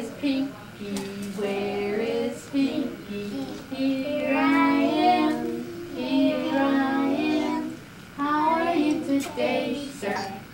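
A woman and a group of young children singing a children's song together, in short phrases with brief pauses between them.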